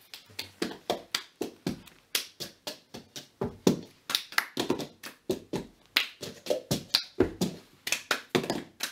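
Two people playing the cup game together: a steady rhythm of hand claps and cups tapped and slapped down on the floor, several hits a second.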